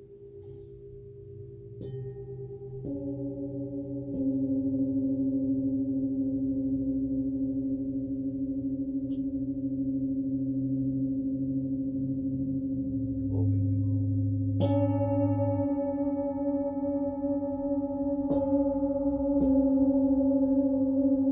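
Metal singing bowls struck one after another, each ringing on so that their tones overlap in a slow, wavering chord. Fresh strikes come about two, three and four seconds in, then again near 15, 18 and 19 seconds.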